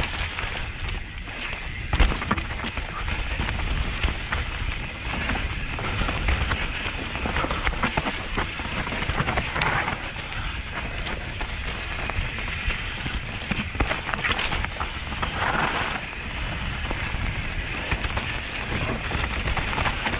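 Enduro mountain bike descending a dirt forest singletrack at speed: tyres crackling over dry leaves, roots and stones, the bike rattling, with steady wind rumble on the camera's microphone. A hard thump about two seconds in.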